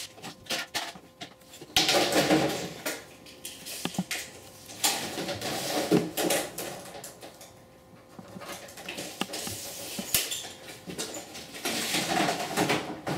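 A long vinyl siding panel being handled and slid across a saw table, with irregular rattling, scraping and flexing of the thin plastic in uneven bursts. There is no saw running.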